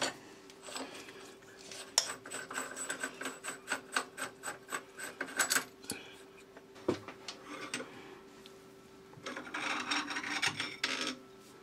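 Metal-on-metal handling of an ER32 collet chuck: a hook spanner works the collet nut loose, and the nut is spun off its threads in a quick run of clicks and scrapes. A single knock comes about seven seconds in, then a longer stretch of metal scraping near the end as the collet holder is taken off the lathe spindle.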